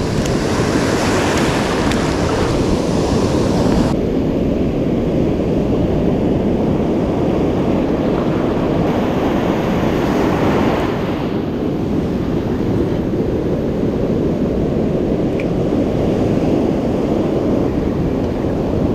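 Ocean surf breaking and washing up the beach in a steady rush of foam, with wind buffeting the microphone.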